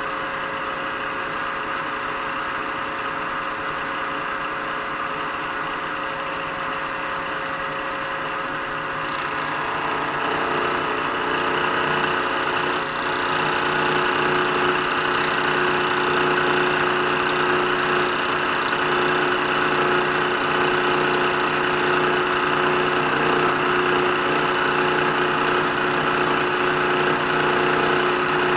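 Milling machine spindle running at 1850 RPM with a homemade dovetail cutter milling a brass part under hand feed: a steady machine hum with a cutting noise, which grows louder and harsher about ten seconds in as the cutter goes deeper into the brass.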